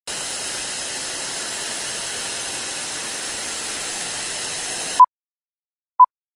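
Steady TV-static hiss from a glitch intro effect, cutting off suddenly after about five seconds. It is followed by short, high beeps, one a second, two of them.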